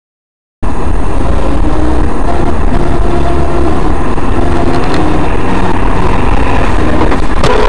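Loud, steady engine and road noise of a moving car picked up by a dashcam mic in the cabin, heavy in the low end and close to distorting. It cuts in abruptly about half a second in, after silence.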